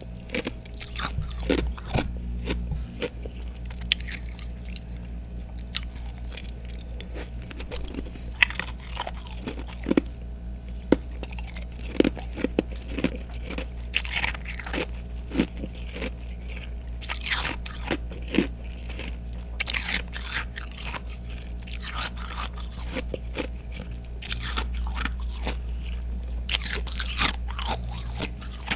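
Close-up crunching and chewing of ice: freezer frost and thick ice pieces bitten and crushed between the teeth in irregular, crackly crunches, over a low steady hum.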